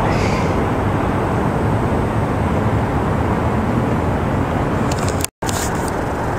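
Steady road traffic noise, a dense continuous rumble of passing cars. The sound cuts out for a split second about five seconds in.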